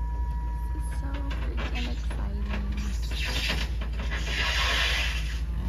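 A truck's engine runs with a steady low rumble while a portable building is slid off a tilt-bed trailer, with clicks, knocks and creaks from the unloading and a stretch of hiss about three seconds in.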